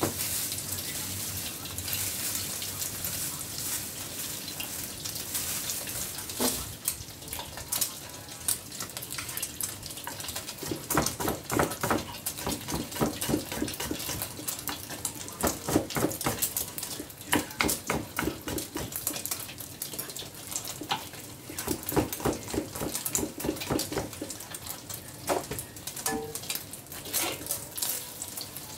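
Knife slicing garlic on a wooden cutting board in quick runs of strokes over the steady hiss of an egg frying in a wok on a gas burner. Near the end a spatula scrapes and stirs in the wok.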